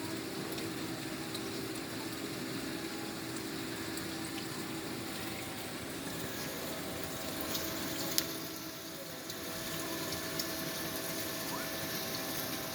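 Steady watery rush of aquarium filters and air pumps running in banks of fish tanks, with a faint steady hum under it and a single sharp click about eight seconds in.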